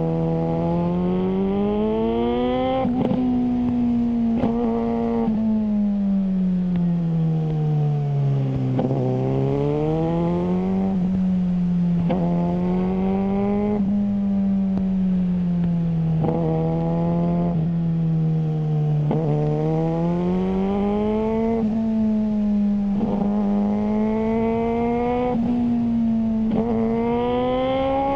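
Suzuki GSR600 inline-four engine through a GPR Ghost aftermarket exhaust, under way. It revs up and eases off over and over, with brief sharp breaks in the note at gear changes.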